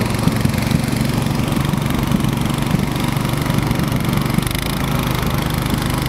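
Small snowmobile's engine running steadily as it travels across snow, a constant motor drone over the hiss of the track and snow.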